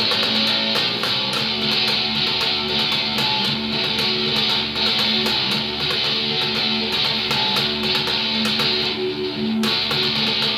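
Electric bass guitar played fingerstyle, a riff in D, with steady drum hits and other instruments playing along.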